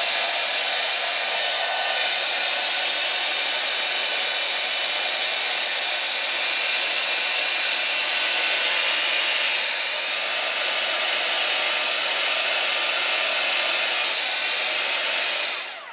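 Handheld embossing heat tool running on its high setting, a steady whoosh of its fan blowing hot air onto a fabric petal to melt and curl the edges. It winds down and stops just before the end.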